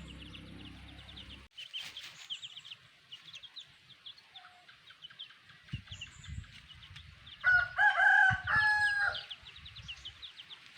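A rooster crows once, loud and about two seconds long, in two joined parts, past the middle. Rapid high-pitched peeping runs throughout.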